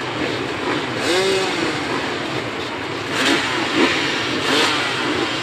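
Motocross motorcycle engines revving, the pitch rising and falling about a second in.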